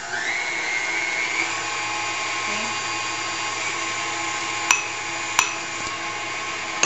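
Electric tilt-head stand mixer whipping cream: the motor whine rises in pitch over the first second and a half as it spins up, then runs steadily. Two sharp clicks come a little over half a second apart around five seconds in.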